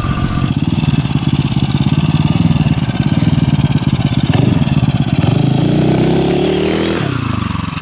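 Single-cylinder Tillotson 225 racing engine on a home-built hybrid dirt bike running under throttle, its pitch climbing steadily as the bike accelerates. Near the end the pitch drops sharply as the bike passes close by.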